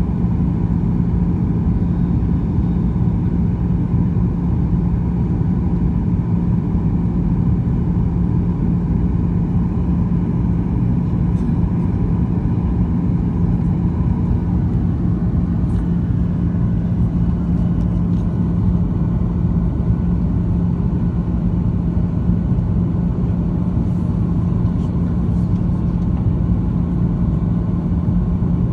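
Cabin noise of a Boeing 737-900 on descent: its CFM56-7B turbofans and the rushing air make a steady low drone with a constant hum.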